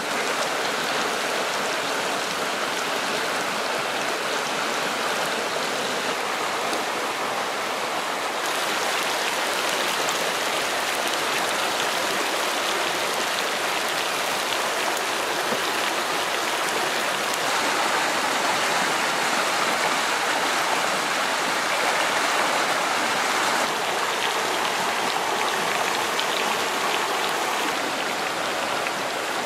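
Rushing stream: a steady, even wash of water noise, changing slightly in tone a couple of times.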